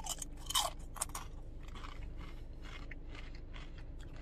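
A person chewing crunchy Flamin' Hot Nacho Doritos tortilla chips with the mouth closed: a few sharp crunches in the first second or so, then softer, steady chewing.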